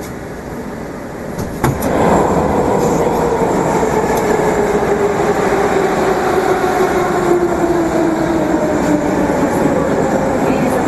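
Moscow metro 81-765 "Moskva" train heard from inside a car: a click, then the running noise swells and a whine from the traction drive slides slowly and steadily down in pitch as the train slows.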